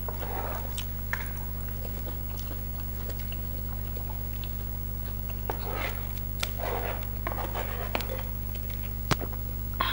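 Mouth sounds of people eating and chewing, with scattered small clicks of cutlery, over a steady low hum.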